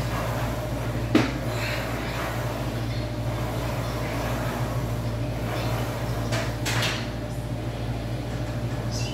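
Bench-press reps with a bar loaded with iron weight plates. There is one sharp metal clank about a second in and softer knocks around six and a half seconds, over a steady low hum.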